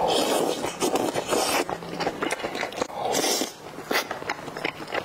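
Close-miked eating sounds: wet slurps of slippery pieces of soupy spicy hot pot sucked in from chopsticks, about three times, with chewing and lip-smacking clicks in between.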